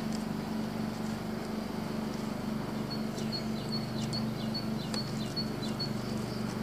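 A steady low hum with a slight pulsing, with a bird's high, repeated short chirps and quick falling notes over it.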